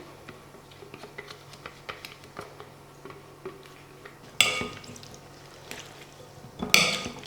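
Kitchen utensil clinking against a bowl or dish: faint small clicks, then two loud ringing clinks, one about halfway through and one near the end.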